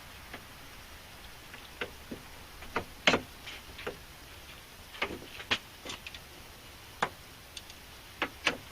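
Irregular sharp clicks and light knocks of a metal U-clip and inner door handle being worked into a truck door panel. The loudest click comes about three seconds in.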